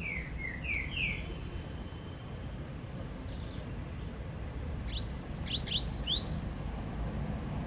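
Double-collared seedeater (coleiro) singing its Laranjeira-type song. There is a quick run of four short rising notes at the start, then a louder burst of brighter, higher notes about five seconds in.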